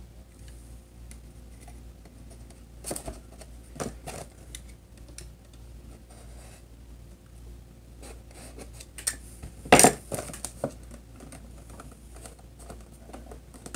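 Cardboard-and-plastic window box of a Nerf Microshot blaster being handled and pried open by hand: scratching, rustling and small clicks of cardboard flaps and plastic. One loud sharp crack stands out about ten seconds in, with smaller ones around three and four seconds.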